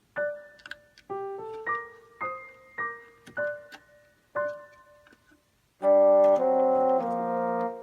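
Background music: a melody of single piano-like notes, then loud held chords from about three-quarters of the way in.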